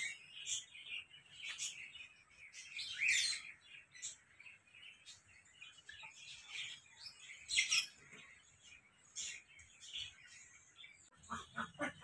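Small birds chirping, short high calls on and off, some sliding down in pitch. Near the end a duck starts quacking in a quick run of about six quacks a second.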